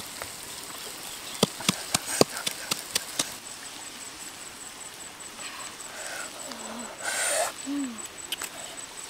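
Wood fire crackling under a clay pan of shrimp, with sharp irregular pops in the first three seconds. Later, a short hooting call sounds twice, with a brief rustle in between.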